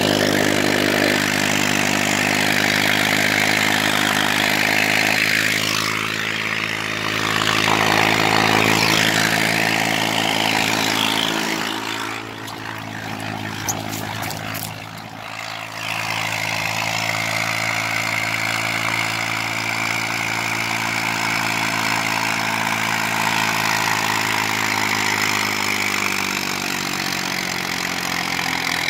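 TAFE 45 DI tractor's direct-injection diesel engine running steadily under load while hauling manure. The engine note is briefly quieter about halfway through, with a single click, then returns at full strength.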